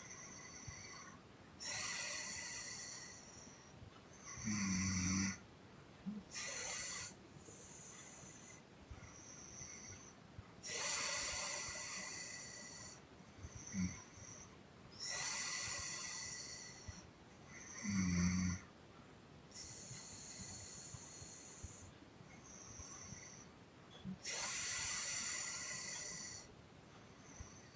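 A sleeping person breathing heavily: long hissing, puffed exhalations every few seconds, broken twice by a short, loud, low-pitched snore, with a few small snorts between.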